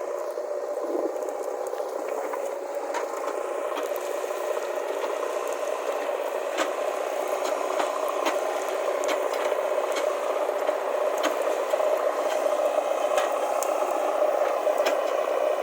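JCB backhoe loader at work: a steady engine note with scattered clicks and rattles throughout, growing slightly louder over the stretch.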